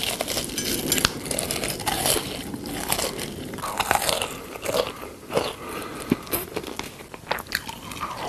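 Close-up eating sounds: someone biting and chewing crunchy food, with many short crackles.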